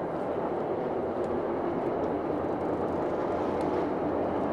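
Steady, even noise of a fishing boat on open water: its engine running, mixed with water and wind.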